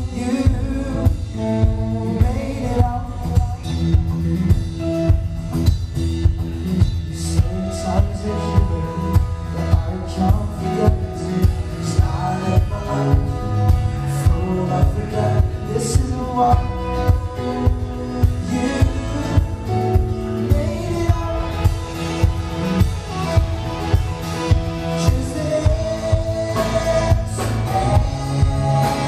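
Live band playing a song: two male voices singing, one in harmony with the other, over strummed acoustic guitar and drums keeping a steady beat.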